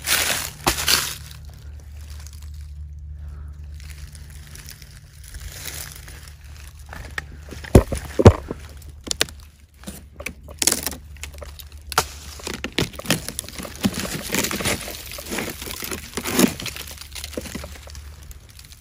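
Footsteps crunching and rustling through dry leaf litter on the forest floor, irregular and ongoing. About eight seconds in come two loud, heavy thumps half a second apart.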